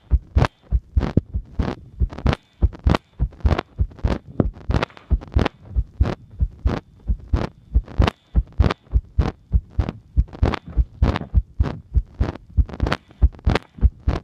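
Human heartbeat recorded close up: a steady, even rhythm of thuds, a little under three a second.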